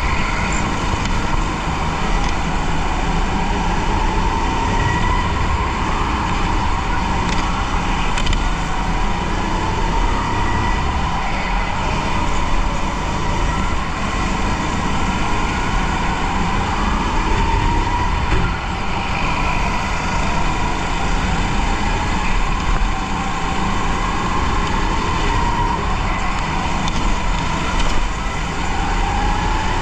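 Onboard sound of a rental go-kart driven at racing pace: a motor whine that climbs and falls again every few seconds with the throttle, over a steady rumble of chassis and tyres on the track.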